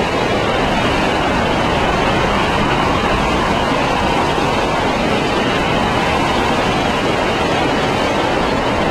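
Hurricane eyewall winds blowing with gusts near 130 mph: a loud, steady rush of noise with no letup.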